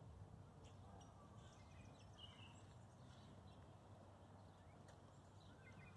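Near silence: faint outdoor ambience with a few faint, short bird chirps.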